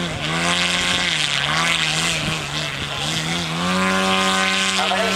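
Model aircraft engine running, its pitch wavering up and down, then rising and holding steady before cutting off suddenly, with an airy hiss over it.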